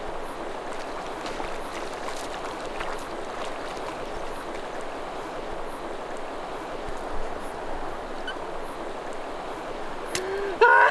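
Steady rush of river water flowing around a wader. A man's voice whoops briefly near the end.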